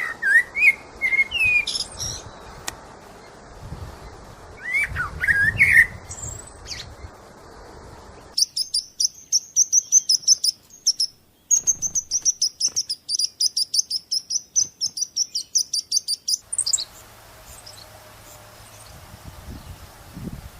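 Birds chirping: short rising chirps at first, then from about eight seconds in a fast, even run of high-pitched chirps, about five a second, which breaks off briefly and stops near the end.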